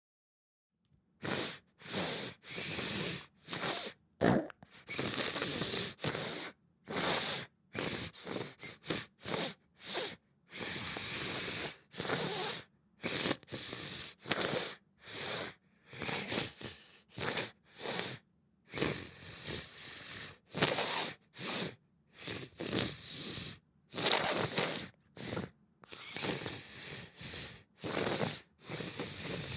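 A person with a congested, mucus-filled nose sniffing over and over: dozens of short wet sniffs, some drawn out longer, with brief pauses between. The sound of a head cold or flu.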